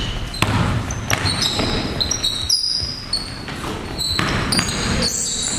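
Basketball being dribbled on a hardwood gym floor, with repeated bounces and many short high sneaker squeaks as players cut and shuffle, in the echo of a gymnasium.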